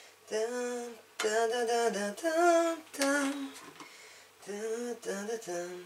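A woman humming a song's tune alone, in short phrases of held notes, with a break of about a second past the middle.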